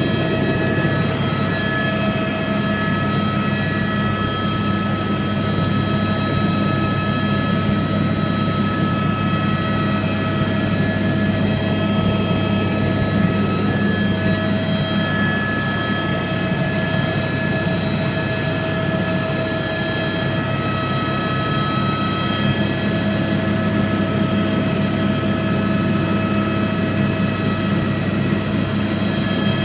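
Helicopter in flight heard from inside the cabin: a loud, steady drone of rotor and engine with several high whining tones held over it.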